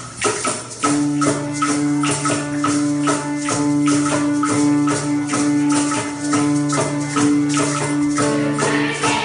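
Instrumental music with a steady percussion beat and, from about a second in, held low notes and chords: the introduction to a choral song, before the voices come in.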